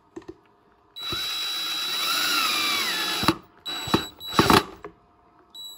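Cordless drill/driver driving a coarse-thread self-tapping screw into a softwood bee box joint: the motor whirs steadily for about two seconds, its pitch sagging as the screw bites, then a few sharp clicks as it stops.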